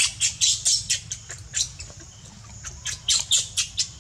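A run of short, high-pitched animal squeaks, several a second, in two bursts: one over the first second and another about three seconds in.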